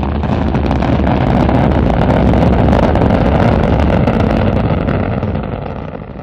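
Rocket engine firing: a loud, steady rushing rumble that fades over the last second or so.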